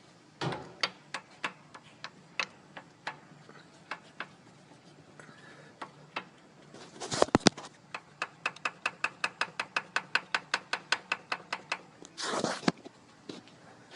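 Mercedes OM642 engine giving sharp metallic knocks, which the owner takes for piston knock. The knocks come irregularly at first, then settle into a steady run of about four a second, with a few louder rattling bursts in between.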